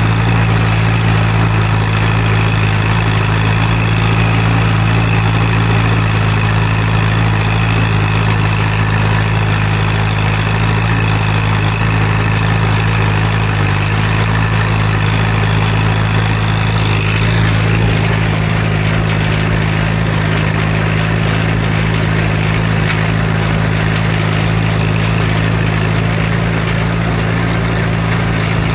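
1951 Allis-Chalmers CA tractor's four-cylinder engine running at a steady speed, plausibly while pulling a one-bottom plow through the ground; an even, unchanging engine note with a strong low hum.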